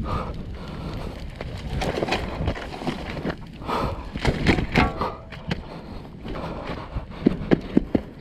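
Handling a burning pit bike: scraping, rustling and knocking as burning plastic bodywork is pulled off and dropped on the asphalt. Several sharp knocks come in quick succession near the end.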